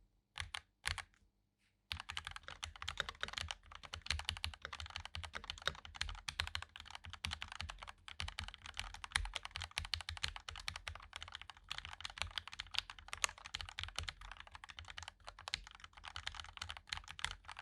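Typing on a Sades Kunai mechanical keyboard with Gateron Pro Yellow linear switches and Ruf Serra keycaps: a few single keystrokes, then fast continuous typing from about two seconds in.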